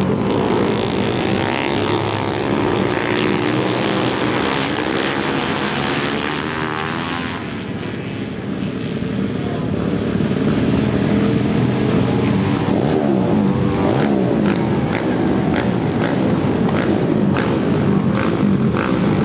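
Flat-track racing motorcycles of the 600cc class running laps on a dirt oval. The engine note rises and falls as the bikes work around the track, fades somewhat about eight seconds in, then builds again.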